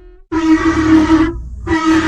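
Bus horn sounding two loud blasts with a steady pitch, the first about a second long and the second starting after a short gap near the end, over a low rumble.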